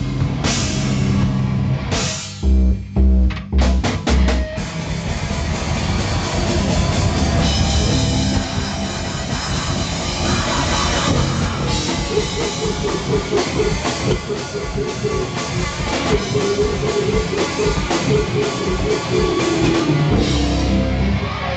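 Live heavy rock band playing loud, led by drum kit and cymbals. A few sharp stop-start hits come about two to four seconds in, then the band settles into a steady, driving section.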